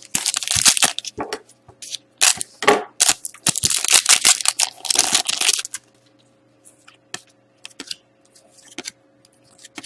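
Crinkling and rustling of a hockey card pack wrapper being torn open and handled for about five and a half seconds, then a few light clicks of cards being handled.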